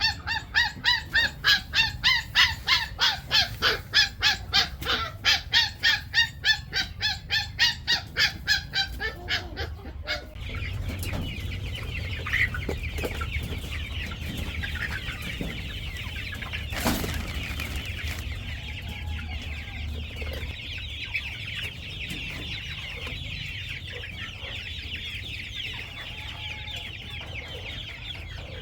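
Five-week-old chicks calling: about ten seconds of loud, evenly repeated calls, about three a second, then a steady, dense chorus of many chicks peeping together.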